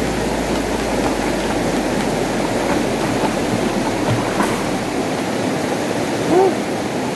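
Fast river current rushing and churning around a swimmer, splashing close to the microphone.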